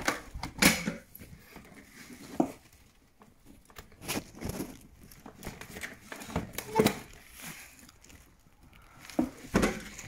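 Hands working on boiler parts: a plastic dust sheet rustling and crinkling, with scattered sharp clicks and knocks of fittings and casing parts being handled, the sharpest about a second in.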